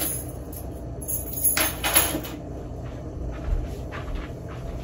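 A few knocks and rattles of things being handled, loudest about two seconds in, over a low steady hum.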